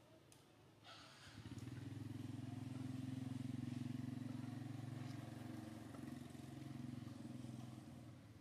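A vehicle engine drone, steady in pitch, comes in about a second in, grows louder, then fades out near the end, like a vehicle passing by. A brief click comes just before it.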